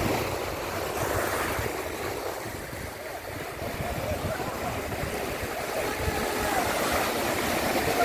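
Small waves breaking and washing up a sandy beach, a steady rush of surf.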